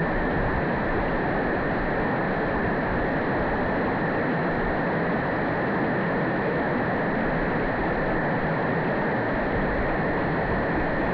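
Mountain river running steadily: an even rush of flowing water with no changes or separate sounds.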